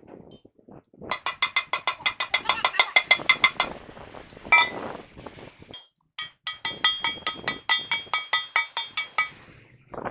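Rapid metal-on-metal tapping: two runs of quick, evenly spaced ringing strikes, about seven a second, each lasting two to three seconds, with a few lighter clinks between them.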